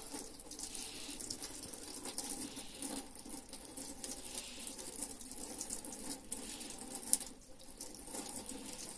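Tap water running and splashing over a range-hood fan wheel held under the stream in a stainless steel sink, rinsing off degreaser and loosened grease.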